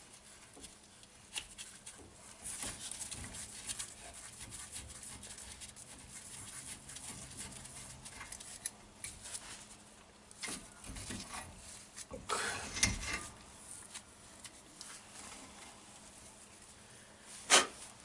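Metal brake caliper parts being handled by hand: rubbing and scraping, with light clicks here and there, a louder patch of scraping a little past halfway and one sharp click near the end.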